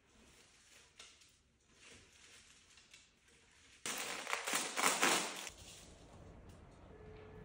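Paper flower wrapping crackling and rustling for about a second and a half as a bouquet is unwrapped, after a few faint light knocks from handling.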